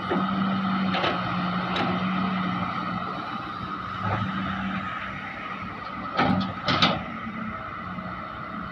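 Heavy diesel engine running steadily under load, with several sharp knocks over it. The two loudest knocks come close together about six and seven seconds in.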